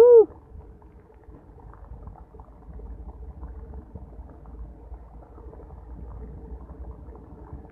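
Heavy rain falling on open water and reeds, heard as a dull, muffled hiss through a phone microphone that the uploader thinks got wet. A brief voice sounds at the very start.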